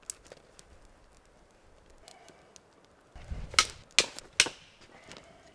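Faint crackling of a small campfire, then, about three seconds in, a low thump and three sharp cracks in quick succession as dry sticks are snapped by hand for the fire.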